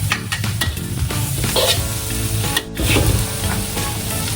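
Shallots, Chinese sausage and wax pork frying in hot oil, sizzling steadily as they are stirred, with the utensil scraping and knocking against the pan now and then.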